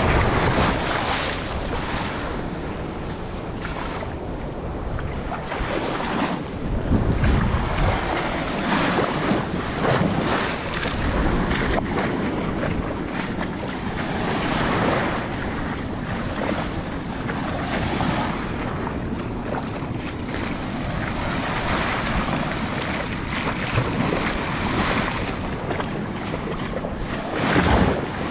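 Small waves washing and splashing in the shallows right at the microphone, with gusts of wind buffeting the microphone.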